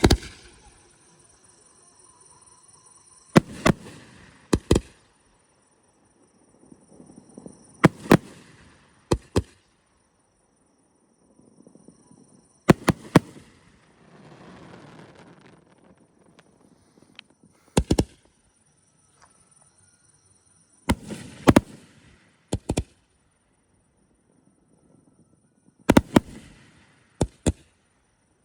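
Multi-shot aerial firework cake firing 3-inch shells one after another: sharp bangs come in groups of two or three about every four to five seconds, some groups preceded by a short hissing rise.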